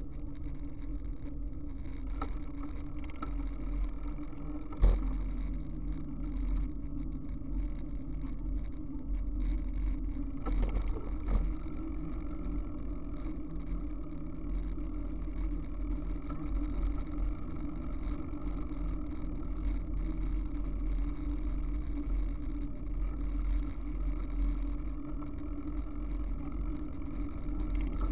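Bicycle rolling along an asphalt road, heard from a camera on the bike: a steady rumble of wind and tyre noise with a low hum, and one sharp knock about five seconds in.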